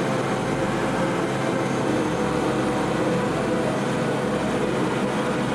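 Steady engine and rotor drone of a helicopter flying.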